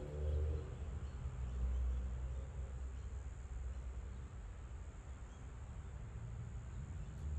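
Room tone: a steady low hum that swells and fades slightly, with a thin, steady high-pitched whine over it.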